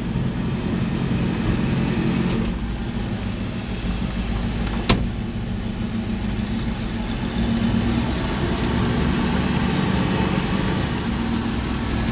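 Chevy 350 small-block crate V8 running steadily with the truck under way, a little louder from about seven seconds in. A single sharp click sounds about five seconds in.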